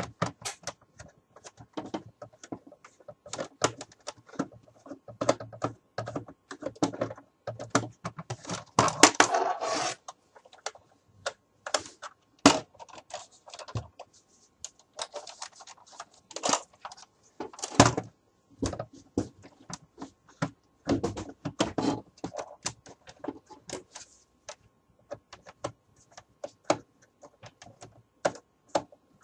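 Irregular plastic clicks, knocks and rattles from a plastic toy M16A4 rifle being handled on a wooden table, its magazine and parts being worked by hand. A denser stretch of rattling comes about nine seconds in.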